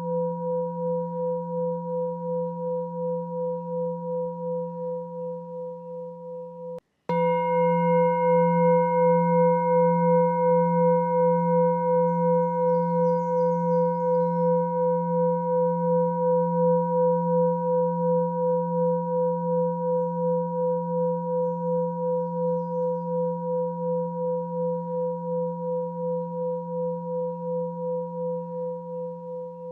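Sustained ringing meditation tone at a few fixed pitches, pulsing with a steady wobble about twice a second. It cuts out for a moment about 7 seconds in and restarts brighter, with extra high overtones, then slowly fades.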